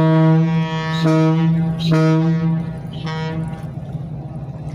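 The Huron museum ship's horn sounding a salute to a passing freighter: a deep, loud note in several blasts, stopping about two and a half seconds in.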